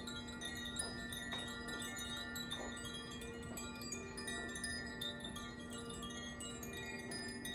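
Tuned hand-held wind chimes being gently swayed: a continuous shimmer of many overlapping ringing tones, with fresh strikes every fraction of a second and a steady low tone held underneath.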